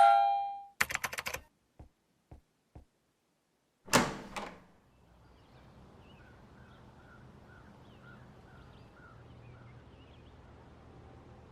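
A ringing tone dies away, then a quick run of sharp clicks, three single clicks and a louder thunk about four seconds in. After that a faint, steady outdoor background with small bird-like chirps.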